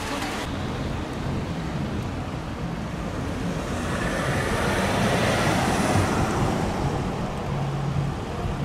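City road traffic: a steady rush of passing vehicles, one swelling louder in the middle and fading again, with a low engine hum near the end.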